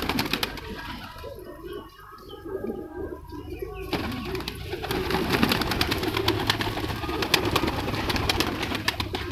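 A flock of domestic pigeons cooing together in a loft. From about four seconds in comes a rapid run of wing flaps and scuffling as the birds are stirred up.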